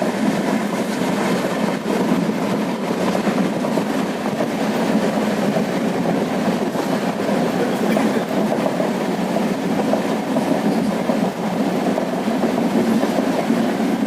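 Moving train: a steady rumble of wheels on the rails with no let-up.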